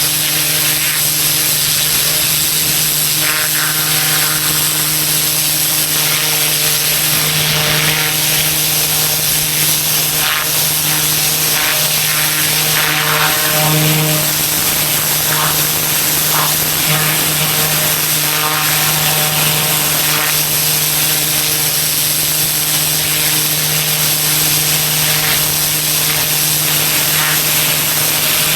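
Pressure washer running steadily, its engine droning under the hiss of high-pressure water spray.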